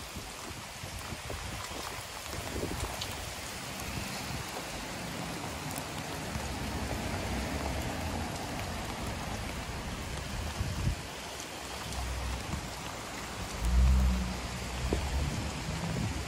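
Steady hiss of rain falling during a thunderstorm. A low rumble swells briefly near the end and is the loudest sound.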